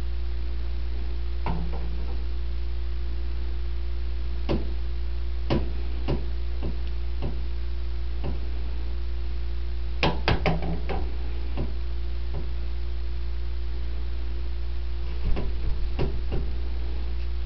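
Scattered clicks and knocks as ATV front-fork parts are handled and fitted into the chrome triple clamps, with a cluster of knocks about ten seconds in and another near the end, over a steady low hum.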